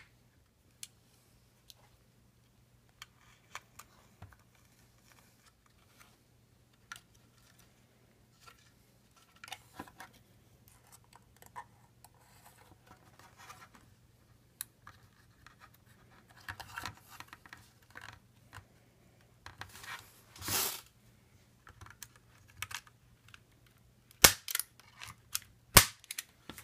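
Handling noise from fitting a battery pack to a circuit board with a label and a plastic cable tie: scattered light clicks and rustles, a short rasp about twenty seconds in, and a few sharp clicks near the end, the loudest of the lot.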